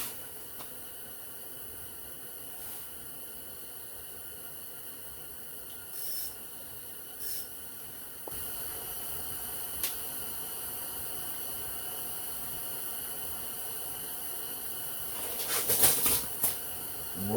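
A steady high hiss with faint electronic tones under it, a little louder after about eight seconds. A few soft ticks come partway through, and a short rustling burst comes near the end.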